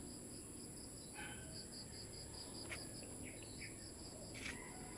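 Crickets chirping in a steady, even pulse of about five chirps a second over a constant high insect whine, with a few short bird chirps here and there.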